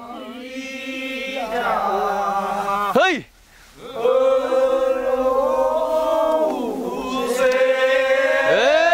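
Men's voices singing a Korean rice-paddy weeding work song (nonmaeneun sori) in a chanted folk style with long held notes. About three seconds in there is a short loud sweeping call and a brief pause, then the singing resumes in a long sustained phrase.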